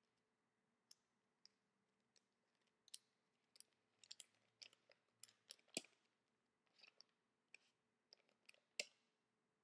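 Quiet crinkling and crackling of a folded paper dollar bill being worked open by hand: scattered short clicks, busiest in the middle, with two sharper snaps, the second near the end.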